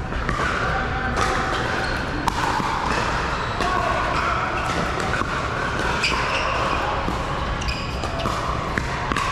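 Pickleball rally: paddles striking the hard plastic ball in a string of sharp pops at irregular intervals, over a steady background of voices and play in a large indoor hall.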